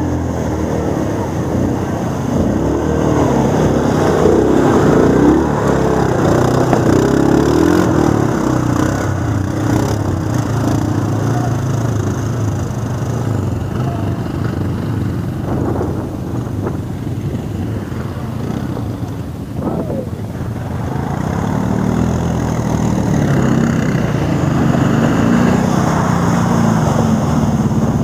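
ATV engines running as the quads ride through a muddy bog trail, the engine note easing off for a few seconds past the middle and then picking up again.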